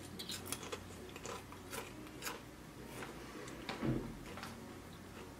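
A potato chip being bitten and chewed: a run of faint, dry crunches. A short low sound comes about four seconds in.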